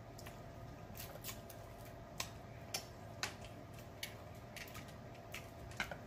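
Snow crab claw shell being picked and pried apart by fingers: scattered small sharp clicks and cracks, a dozen or so at irregular intervals, over a faint steady hum.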